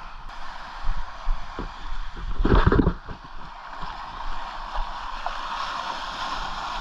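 Small waves washing in over shallow water at the shoreline, with wind buffeting the microphone, loudest in one gust about two and a half seconds in.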